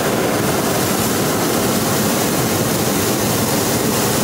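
Hot-air balloon's propane burner firing overhead, cutting in abruptly and holding loud and steady; the burn heats the air in the envelope as the basket lifts off the ground.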